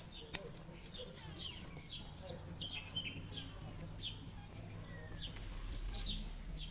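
Small birds chirping repeatedly: short high chirps, each sliding down in pitch, several a second, over a steady low hum. A single sharp click sounds about a third of a second in.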